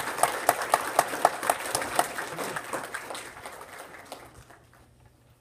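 Audience applauding, with many hands clapping at once, dying away about four seconds in.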